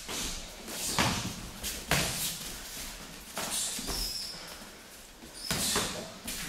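Kickboxing sparring: a handful of sharp slaps and thuds as gloved punches and shin-guarded kicks land on gloves and bodies, a second or two apart, with bare feet shuffling on the mats between them.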